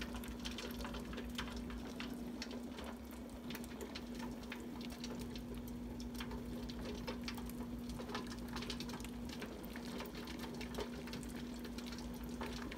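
A faint steady hum with scattered light clicks and ticks, from a sped-up stretch of kitchen sound.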